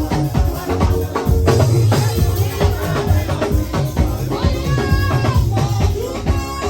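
Music with a steady drum beat over a sustained bass line.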